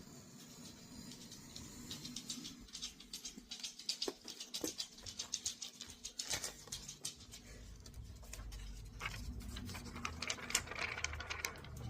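Paper pages of a glue-bound book rustling and crackling as they are cut and pulled apart, a dense run of quick sharp ticks. In the second half a low rumble of handling runs under them.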